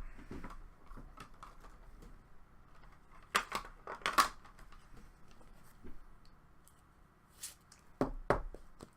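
Trading cards and packs being handled on a table: soft rustles and light clicks, with a few sharper clacks about three and a half seconds in, around four seconds in, and again near the end.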